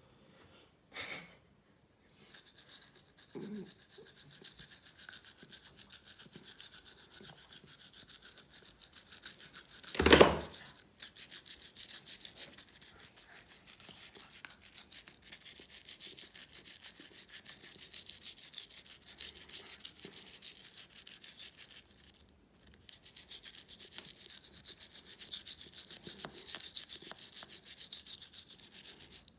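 Toothbrush scrubbing a dachshund's teeth in quick back-and-forth strokes, with a short break about two-thirds of the way through. A single loud bump sounds about a third of the way in.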